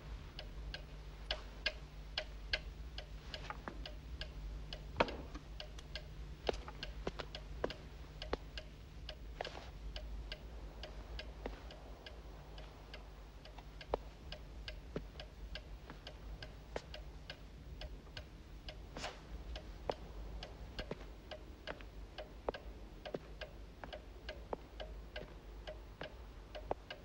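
A clock ticking steadily, a few ticks a second, over a faint low hum.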